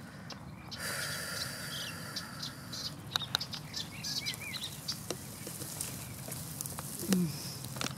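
Outdoor ambience with a few short bird chirps and scattered light clicks, over a brief hissy buzz in the first few seconds. A short, low, falling sound near the end is the loudest moment.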